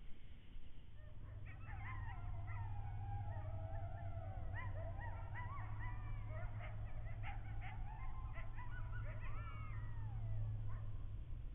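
Coyotes howling and yipping, several voices overlapping in rising and falling glides, starting a second or so in and dying away near the end, over a steady low hum.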